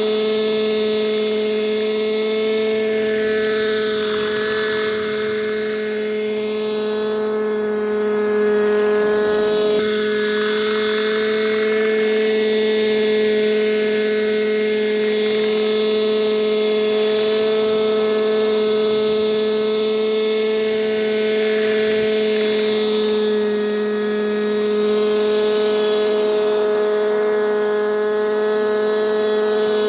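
Hirobo Shuttle radio-controlled helicopter's glow engine and rotors running with a steady high drone, the pitch holding level while the sound swells and fades as the model moves about in the hover.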